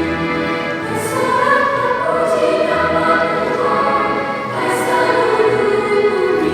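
Mixed children's choir singing sustained notes in several parts, with the voices moving together to new chords.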